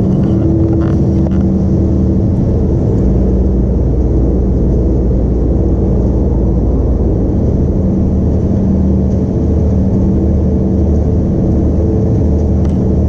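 Steady low drone of a boat's engine running at an even speed, a constant hum with a deep rumble beneath it.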